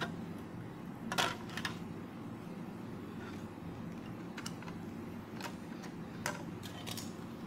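Scissors snipping through a plastic CD: a series of sharp clicks and snaps as the blades close on the disc, the loudest about a second in, then a few more spread through, bunched toward the end.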